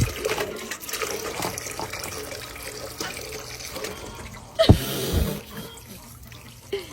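Water running from a tap and splashing, with a sudden loud thump about four and a half seconds in.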